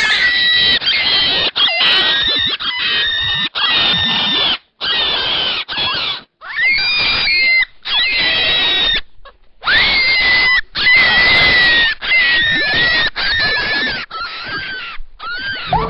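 Rabbit screaming in distress: a rapid string of loud, shrill, high-pitched screams, each about half a second to a second long, with short gaps between them.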